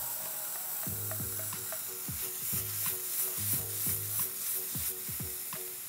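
Blue oyster mushrooms sizzling in oil in a hot skillet as they are stirred with a wooden spoon, searing brown. Background music with a repeating beat underneath.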